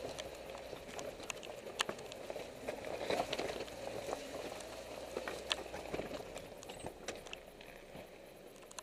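Stones crunching and clicking under the tyres of a Mitsubishi Pinin crawling slowly over a rocky riverbed, irregular knocks over a steady engine hum, thinning out near the end.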